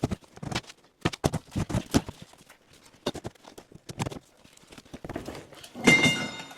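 VW Beetle front seat being worked out along its long-unmoved metal runners: irregular knocks and clunks of the seat frame. About six seconds in, a louder clatter with a short metallic squeal as the seat scrapes free.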